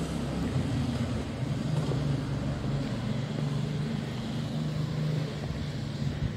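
Steady low hum of a motor-vehicle engine running, over a constant background of street noise.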